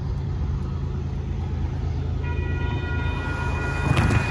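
Approaching BNSF freight locomotive's air horn sounding one long, steady multi-note chord that starts about two seconds in and is still going at the end, a crossing warning, over a steady low rumble. A passing car adds a louder swell near the end.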